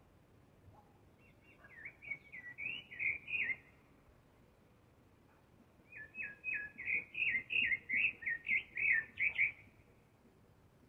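A thrush (zorzal) singing two phrases of quick, varied, sliding notes, the second one longer.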